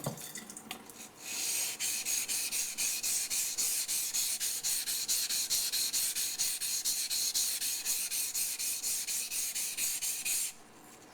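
Yanagi knife's back bevel being ground on a wet waterstone: rapid, even back-and-forth strokes with a rasping scrape, about four a second. The strokes start about a second in and stop shortly before the end.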